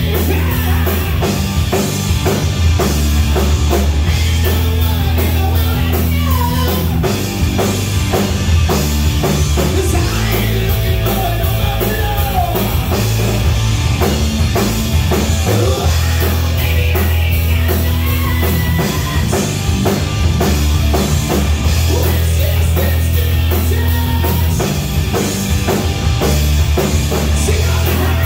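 Live rock band playing: electric guitar, electric bass and a drum kit, with a steady driving beat over held low bass notes.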